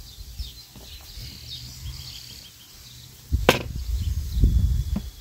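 A sharp click about three and a half seconds in, then low knocks and rumbling and a second smaller click, as the tiller's handle is adjusted and handled on a glass table. Faint bird chirps go on in the background.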